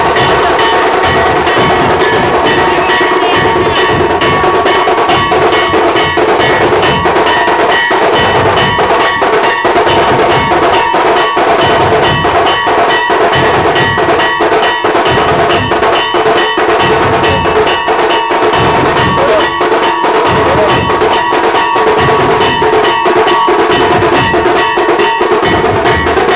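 A troupe of shoulder-slung street drums played together in a loud, fast, steady beat, with a steady metallic ringing over the drumming.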